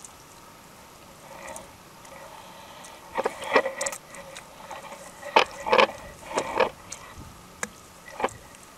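A run of irregular short knocks and scrapes, about a dozen over five seconds, the last two near the end.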